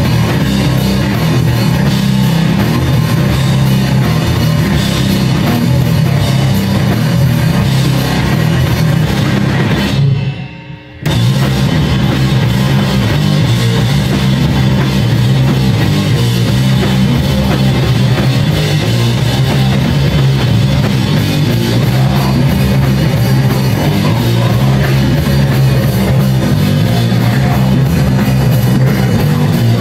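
Live heavy rock trio playing loud: electric guitar, bass and drum kit. About ten seconds in, the band stops dead for about a second, then comes back in at full force.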